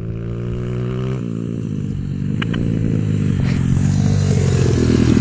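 A single-cylinder four-stroke 140cc pit bike engine (IMR 140cc XL) revving as the bike rides up and passes close by, getting steadily louder. Its pitch climbs, drops about a second in, then climbs again, and the engine sounds like it is running well.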